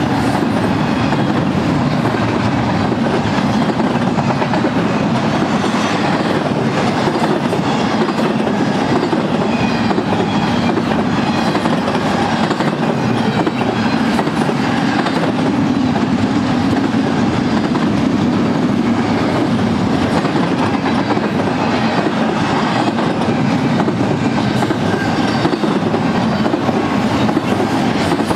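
Double-stack intermodal well cars rolling past at trackside: a steady rumble of steel wheels on rail, with scattered clicks.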